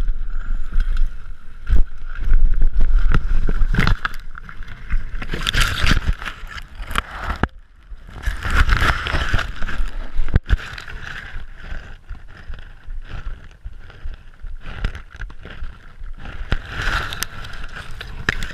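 Mountain bike ridden down a trail: wind buffeting the microphone, tyre noise on dirt, and sharp rattles and knocks from the bike over bumps, with the heaviest rumble in the first four seconds.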